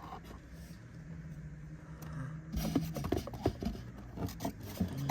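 Handling of a toy's packaging: scraping, rustling and short clicks, busiest from about halfway through, over a low steady hum.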